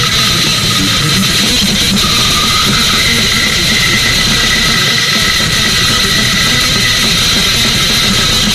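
Extreme metal recording: heavily distorted guitars over fast, dense drumming, loud and unbroken, with a held high guitar note from about three seconds in.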